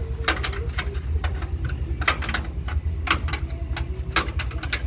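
Irregular sharp metallic clicks and taps, a few a second, of a wrench working the mounting bolts of a diesel engine on a sawmill frame, over a low, steady engine drone.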